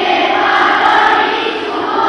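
A large group of voices singing or chanting together in unison, held notes slowly shifting in pitch.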